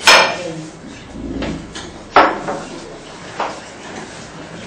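Sharp knocks of objects handled on a lab bench: two loud ones about two seconds apart and a softer third near the end.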